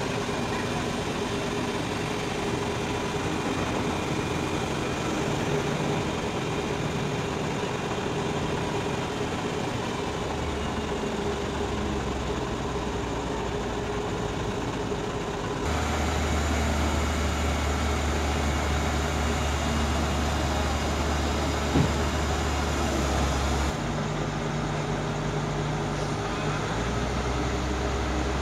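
Demag AC 615 mobile crane's diesel engine running steadily while its boom is lowered, the low drone stepping up in strength about halfway through, easing off and rising again near the end. A single sharp knock sounds a little after the middle.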